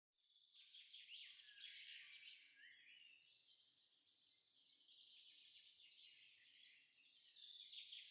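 Faint birdsong: many quick, overlapping chirps and trills from several birds.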